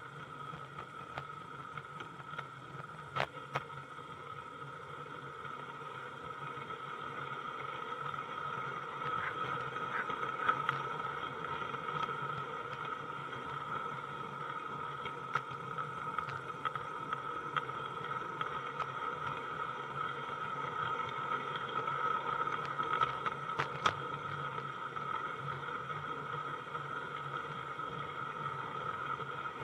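Small garden-scale model train running, heard from a wagon riding in it: a steady high whine and hum from the running gear, with scattered sharp clicks as the wheels pass over the rail joints.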